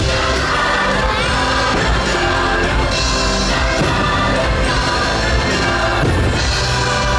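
Loud orchestral Christmas music with singing playing over a fireworks display, with occasional firework bangs and crowd cheers mixed in.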